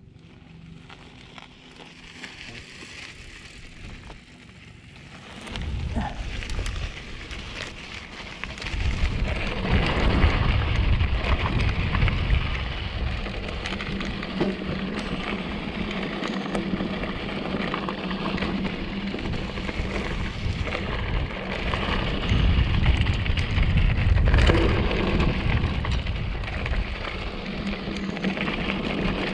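2014 Giant Trance 3 mountain bike riding a rocky dirt trail: a crackling rush of tyres on gravel and rock, with rattle from the bike and a low rumble. Faint for the first few seconds, it picks up about five seconds in and grows loud from about eight seconds.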